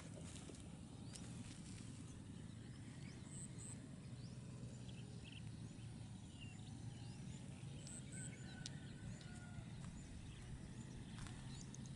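Faint outdoor ambience: a steady low hum with scattered short, high bird chirps and a few thin whistles.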